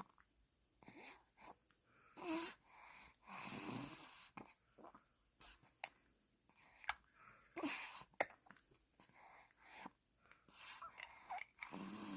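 A sleepy baby's noisy, snore-like breathing, in uneven breaths with short pauses, mixed with small moaning sounds and a few sharp clicks, while feeding on formula.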